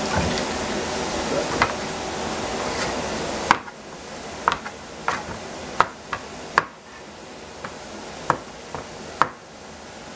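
A steady hiss that cuts off suddenly about three and a half seconds in, then a Chinese cleaver slicing a fresh courgette on a plastic cutting board: about a dozen sharp, irregular knocks of the blade against the board.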